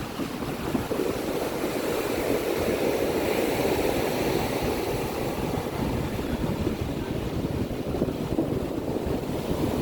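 Ocean surf washing and breaking on a shore in a steady low rush, with wind buffeting the microphone.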